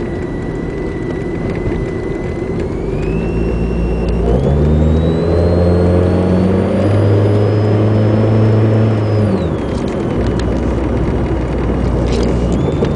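Chevrolet Cavalier heard from inside the cabin while driving: the engine pulls harder about four seconds in, with a thin high whine that climbs in pitch, then both drop back about nine and a half seconds in.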